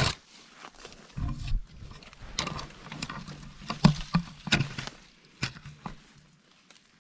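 Dry, dead branches and twigs scraping and snapping, and leaf litter crunching, as someone forces through dense leafless bush. There is a sharp crack right at the start, a low rumble of handling about a second in, and several more snaps and knocks through the middle.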